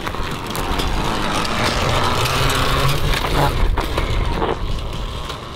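Motorcycle engine running and revving, getting louder about a second in and easing off near the end.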